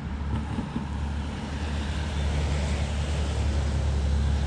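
Wind buffeting the microphone: a low rumble with a hiss over it, growing louder about two seconds in.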